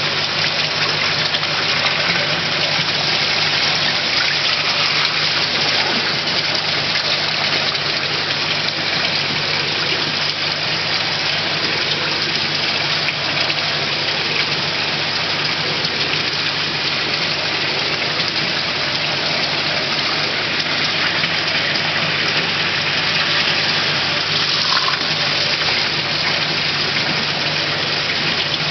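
Steady rush of churning, aerated water in a koi holding tank, with a constant low hum beneath it.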